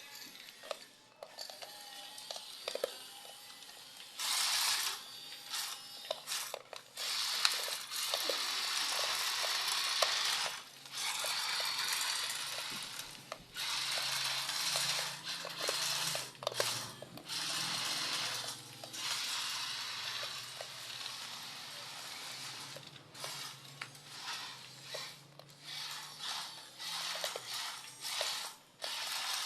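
Toy bulldozer at work: stretches of scraping and clattering a few seconds long, with scattered clicks and short pauses between them.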